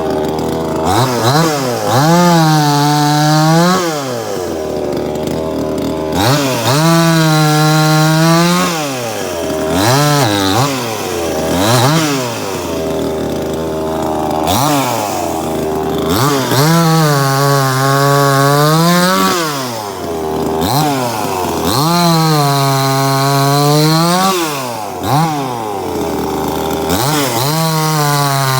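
Cheap Chinese-made '9800' two-stroke chainsaw revving up to full throttle about five times and dropping back to idle between, its pitch sagging a little during each high run as it cuts into maple.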